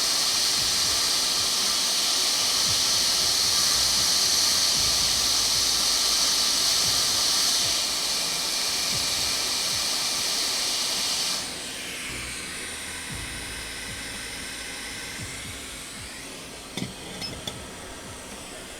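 Hot air rework station blowing a steady hiss of air, heating a part to solder it back onto a MacBook logic board. About eleven seconds in the airflow drops abruptly to a quieter blow that slowly fades, with a few small clicks near the end.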